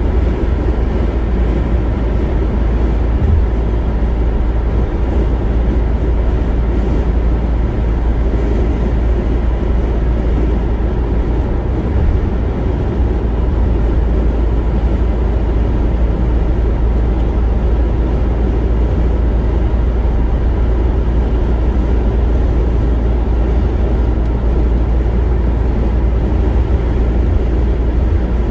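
Steady road and tyre noise with a low rumble from a car cruising at highway speed, heard inside the cabin.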